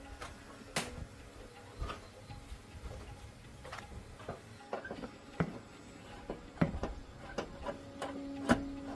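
Irregular metallic clinks and taps of hand tools against metal motorcycle parts, a few sharp strikes with short ringing, coming more often in the second half.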